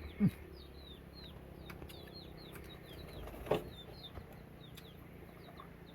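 Small birds chirping with many short, high, falling notes, with a few brief low calls breaking in about a quarter second in, in the middle and near the end.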